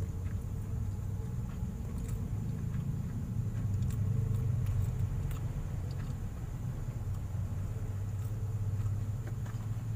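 A steady low hum, with faint clicks and mouth sounds of a person chewing a mouthful of food.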